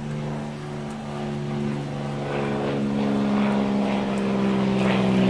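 Low, steady engine drone from an unseen motor, growing gradually louder.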